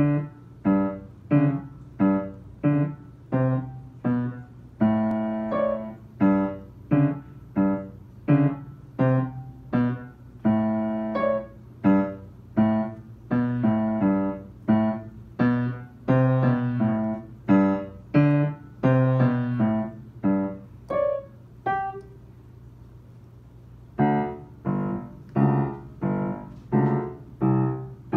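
Yamaha upright piano playing a slow beginner's piece: separate notes struck about two a second, each ringing and fading, with a pause of about two seconds before the playing resumes near the end.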